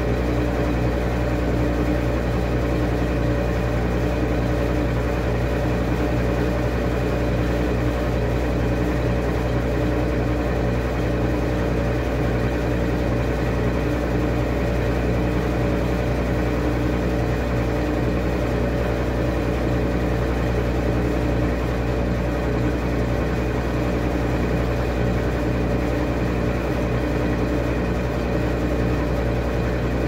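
Top-loading washing machine with a central agitator spinning its drum at speed in the spin cycle: a steady motor and drum hum that does not change.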